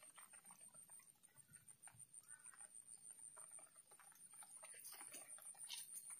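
Near silence: faint outdoor ambience with scattered soft ticks and a thin, steady high-pitched whine.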